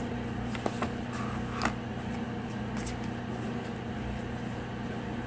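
Steady low background hum, with a few faint clicks and taps in the first three seconds from handling a product box and its packaging.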